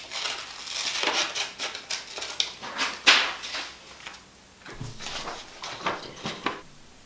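Paper being cut out with scissors and handled with sellotape: irregular rustling, snipping and crinkling, with a louder short rasp about three seconds in.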